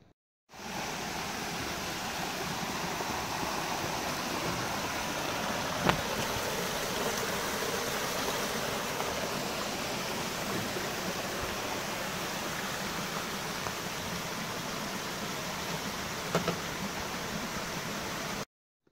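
Creek water rushing over rock slabs, a steady even rush that starts and stops abruptly, with two brief knocks partway through.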